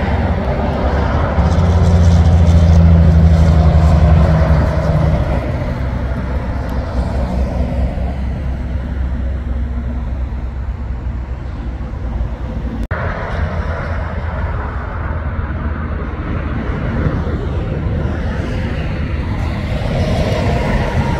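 Heavy truck's diesel engine passing on a road, a low rumble with a steady hum that is loudest in the first few seconds and then fades to a steady traffic rumble. A brief dropout comes about halfway through, and the rumble builds again near the end as another truck approaches.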